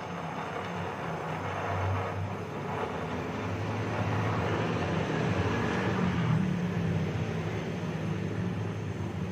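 Gas welding torch flame burning steadily against a steel exhaust muffler pipe, a low rumbling hiss that swells a little toward the middle.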